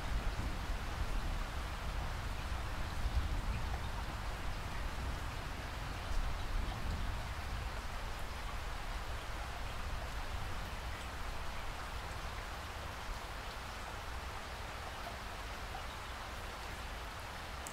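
Steady rainfall. A low rumble, the tail of a thunder roll, dies away over the first several seconds.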